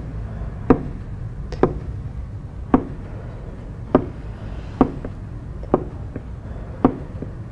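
A series of short, sharp taps, about one a second, over a low, steady background rumble.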